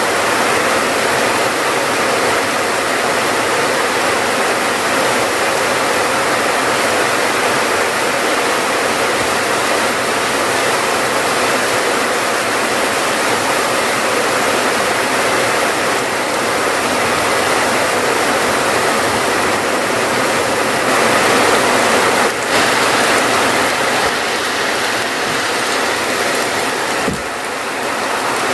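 Steady heavy rainfall, an even, unbroken hiss of rain, with a brief dip in level near the end.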